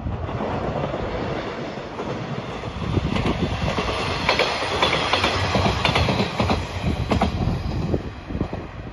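A train passing close by, its wheels clicking rhythmically over the rail joints. The sound swells about three seconds in, is loudest in the middle and fades near the end.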